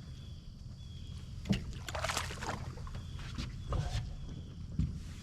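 Knocks and clatter in a fishing boat over a steady low rumble, with a sharp knock about one and a half seconds in and a denser rattle just after.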